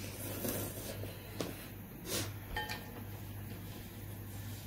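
Noodle eating with short sniffs and hard breaths through the mouth, from the burn of extra-spicy noodles. A metal fork clinks briefly on a ceramic bowl about two and a half seconds in.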